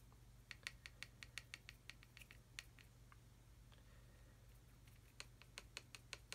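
Faint quick ticking and scratching of a small paintbrush dabbing pigment onto a plastic model part, a few taps a second in two runs, the first starting about half a second in and the second near the end.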